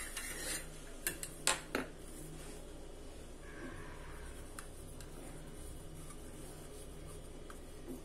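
Three sharp clicks of a metal cream-horn mould being picked up and knocked against a marble counter, about a second in, then a soft rubbing as a strip of dough is wound around the cone.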